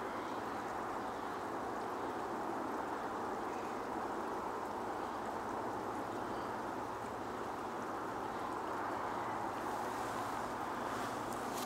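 Steady, even outdoor ambience of a tidal bay, a low constant rush with a few faint distant bird calls.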